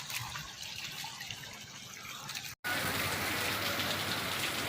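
Rainwater running and trickling. After a sudden cut about two and a half seconds in, heavy rain falls steadily and louder.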